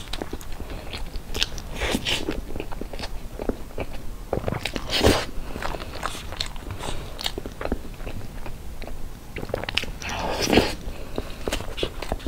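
Close-miked eating of soft cream cake: wet chewing and mouth sounds, with the fork clicking and scraping on the foil cake board. Two louder mouthfuls stand out about five and ten and a half seconds in.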